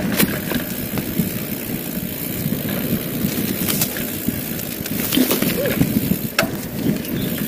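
Mountain bike rolling fast over a dirt singletrack: steady rumble of the tyres on the trail and rattle of the bike, with wind noise on the microphone and a few sharp knocks as it hits bumps.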